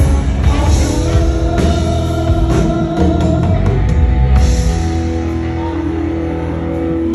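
Live rock band playing loudly: drum kit, electric bass and electric guitar, with one note held steady through the second half.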